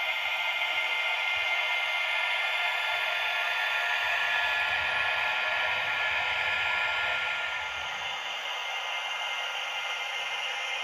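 Sound decoder of a PIKO model BR 247 Vectron diesel locomotive playing its diesel engine sound through the model's small loudspeaker while the locomotive runs: a steady, hissy drone with faint whining tones and no deep bass. It gets a little quieter about seven and a half seconds in.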